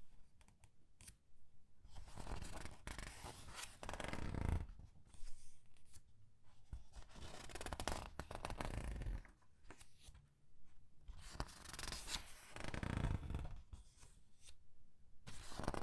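Comic book pages being turned and squeezed by hand, the paper rustling and crinkling in several separate swishes a few seconds apart, with small crackles between them.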